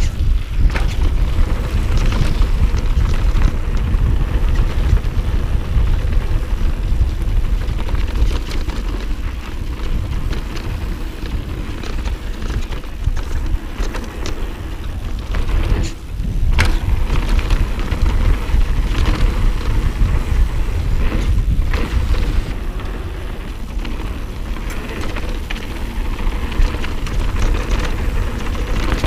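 A mountain bike ridden fast down a dirt jump trail, heard through a GoPro action camera's microphone: a steady heavy rumble of wind buffeting and tyre noise, with rattles and knocks from the bike over the bumps. There is a brief lull, then a sharp knock, about sixteen seconds in.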